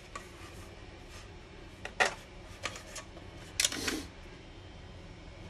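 Hard 3D-printed plastic tiles handled by hand on a cutting mat: a few light clicks and taps, a sharp one about two seconds in, another a moment later, and a short clattering scrape near the four-second mark.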